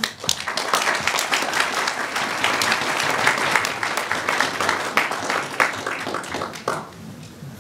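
Audience applause, many hands clapping at once; it starts right away, holds steady, then dies away about a second before the end.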